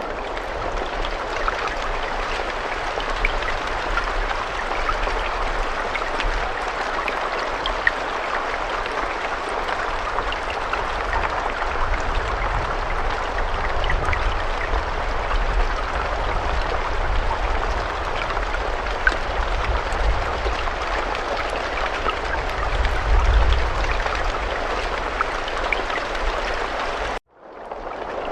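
Steady rain: a dense hiss sprinkled with sharper drop ticks over a low rumble. The sound cuts out abruptly about a second before the end, then resumes.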